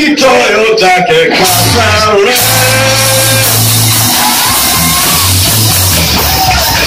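A live rock band playing loud, with electric guitars and drums. A male singer's vocal is heard for about the first two seconds, then the band plays on without singing.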